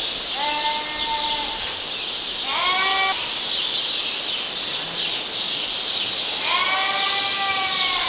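Ewes bleating in a barn, three times: a held bleat about half a second in, a short one near the middle, and a longer one near the end. A steady high hiss sounds underneath.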